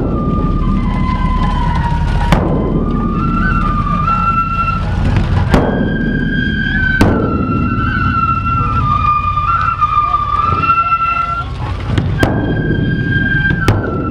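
Japanese festival music: a giant barrel taiko drum on a procession cart struck with wooden sticks about six times at uneven gaps, under a bamboo transverse flute (shinobue) playing a slow, held melody.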